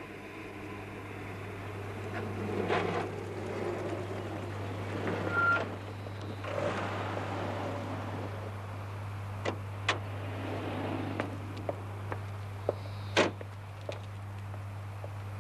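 A Land Rover drives up to a petrol pump and stops, its engine and tyre noise swelling over the first few seconds. Later come sharp knocks, such as its doors shutting, twice about ten seconds in and once more near the end, over a steady low hum.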